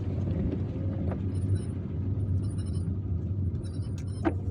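Car's engine and tyre rumble heard inside the cabin while driving, with faint, thin high-pitched brake squeals coming and going from about a second in. The squeal is from worn brake pads that the driver says need changing.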